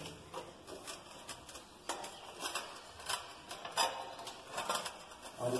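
Light, irregular clicks and taps of hands touching and handling ceramic floor tiles.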